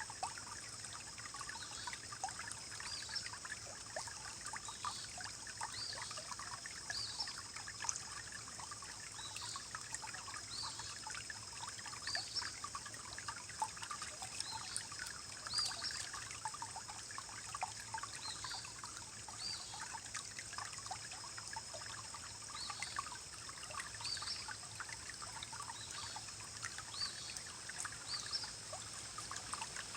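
Small forest stream churning and trickling over rocks, a steady rush of water with constant small bubbling plinks.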